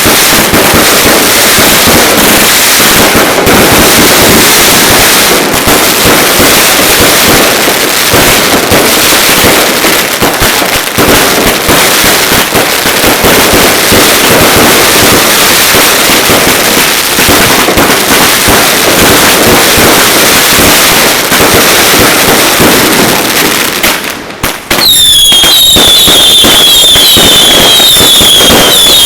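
Ground fireworks setting off a dense, continuous barrage of firecracker bangs and crackling, very loud. After a brief lull about 24 seconds in, a shrill firework whistle sets in over further cracks, wavering in pitch about twice a second.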